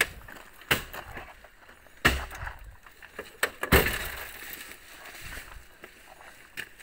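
About five sharp bangs and knocks from a small Hicom lorry, irregularly spaced, the loudest about two and nearly four seconds in; one of them is the lorry's cab door being slammed shut.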